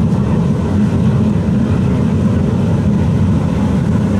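Steady, loud low rumble of a running machine, unchanging throughout.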